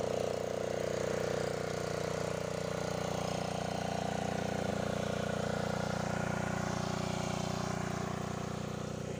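Honda GX80 single-cylinder four-stroke engine running steadily at constant speed, driving a piston spray pump.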